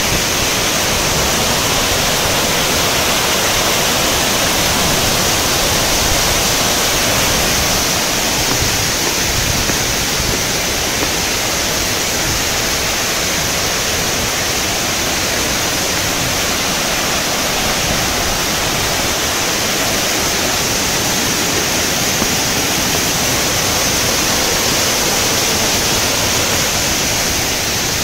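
Waterfall's cascading water rushing steadily: an even, unbroken noise that does not change.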